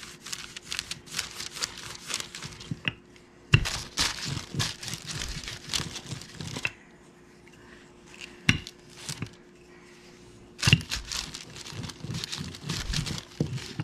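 Wax paper crinkling and rustling under a wooden rolling pin as biscuit dough is rolled out on it, in spells with a quieter stretch in the middle. A single sharp tap about eight and a half seconds in.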